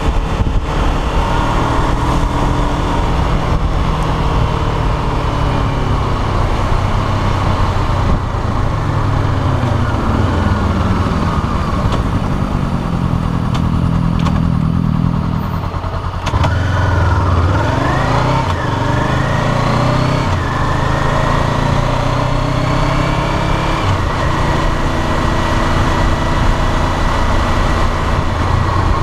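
Honda CBR500R parallel-twin engine under way: its note falls in pitch as the bike slows almost to a stop about halfway through. It then rises in several sweeps through the gears as it pulls away, and settles into a steady run.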